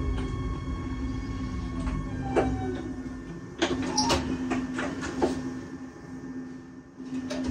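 Regional train heard from the driver's cab as it comes in to a station stop: a low running rumble under a steady hum dies away about three seconds in. A run of sharp clicks and knocks follows.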